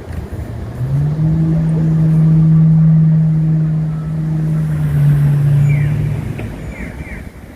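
A road vehicle's engine drone, a steady low hum that swells about a second in, holds for about five seconds, drops in pitch and fades, like a vehicle pulling past. A few faint short high chirps come near the end.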